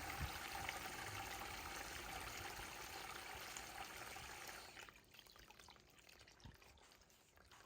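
Water draining through 4 oz nonwoven geotextile fabric: a steady pouring stream that falls away about five seconds in to a faint, dwindling trickle.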